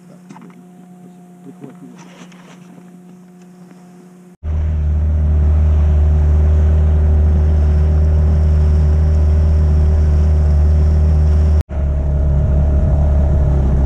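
Boat's outboard motor running steadily under way, a loud, even drone that cuts in suddenly about four seconds in and drops out for an instant near the end. Before it there is only a faint steady hum with a few light clicks.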